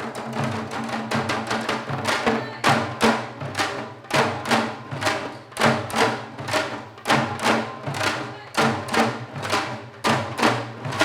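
Janggu, the Korean hourglass drum, played in seoljanggu style: a fast, driving rhythm of sharp stick strokes with regularly spaced heavy accents and a deep drum tone underneath.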